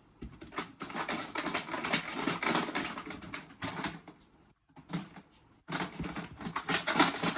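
Irregular rattling and rustling as raffle numbers are stirred and rummaged by hand in a container before the next draw, with two short pauses about two-thirds of the way through.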